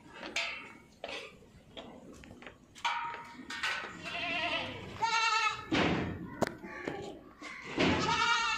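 Goats bleating in quavering calls, the loudest about five seconds in and again near the end, with a single sharp knock in between.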